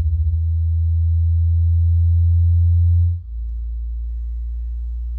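Deep electronic sine-tone drone in an industrial noise piece. The hum swells slowly, then drops abruptly about three seconds in to a quieter steady low tone. A faint thin high tone above it stops at the same moment.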